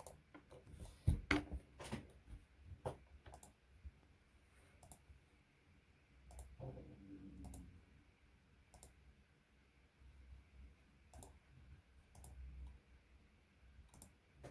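Sparse, irregular clicks and light knocks, with a cluster of louder knocks about a second in.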